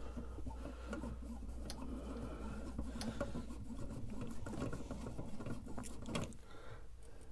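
The axis drive of a CNC hot-wire foam cutter being turned by hand with its stepper motor unplugged: a continuous fine mechanical rattle and clicking as the carriage moves along its rail, with a few sharper clicks, stopping near the end.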